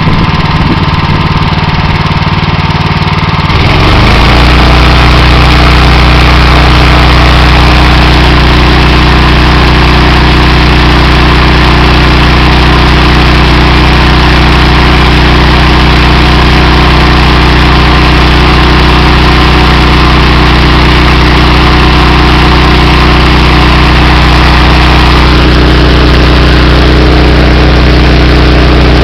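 Honda GX390 single-cylinder engine on a pressure washer running loudly. About four seconds in it picks up speed and settles into a steady, higher-revving run. A hiss above the engine note eases a little near the end.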